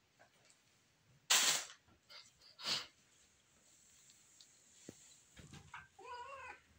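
Two short, sharp noisy bursts a little over a second apart, the first the loudest, then near the end a brief cat call that wavers in pitch.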